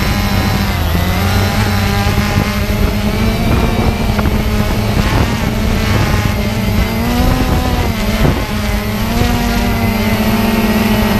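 Quadcopter drone's electric motors and propellers whining steadily, heard from a camera mounted on the drone; the pitch dips and rises several times as the drone manoeuvres.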